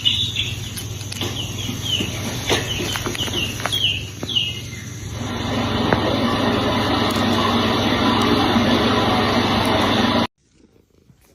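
A small bird chirping repeatedly in short falling chirps, then a steady rushing noise that cuts off abruptly near the end.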